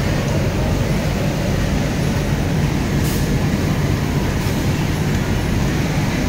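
Steady low background rumble of a factory floor, with a single short click about three seconds in.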